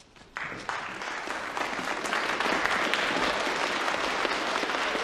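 Applause from a crowd, many people clapping, starting abruptly about half a second in and growing louder over the next couple of seconds before holding steady.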